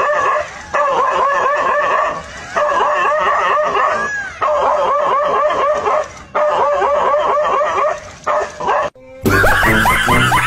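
A dog barking and yelping in rapid strings of short high calls, in several bursts with brief pauses between them. About nine seconds in it cuts off and loud music with a heavy bass begins.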